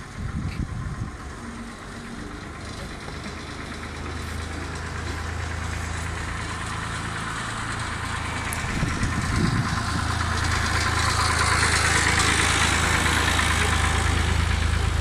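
An engine idling with a steady low hum, growing louder through the second half as a hiss rises with it.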